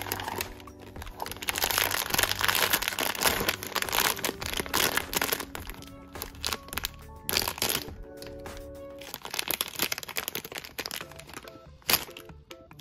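Crinkling and crackling of a blind box's plastic inner bag handled and opened by hand, loudest in the first half, over background music. A single sharp click near the end.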